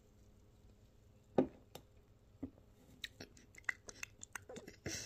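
Wet mouth sounds after a swig of soda: one sharp click about a second and a half in, then a run of small lip smacks and tongue clicks that grows busier near the end.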